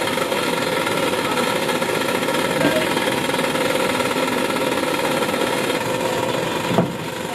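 A steady mechanical drone, even and unbroken, with a brief dip and faint click near the end.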